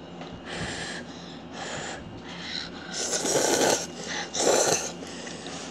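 Slurping Jjapaghetti noodles: four breathy slurps, the loudest and longest about three seconds in, another soon after.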